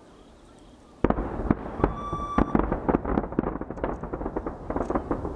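Aerial fireworks in a rapid volley: about a second in, a dense run of sharp bangs and crackling bursts starts suddenly and keeps going, with a short steady tone sounding briefly near the middle.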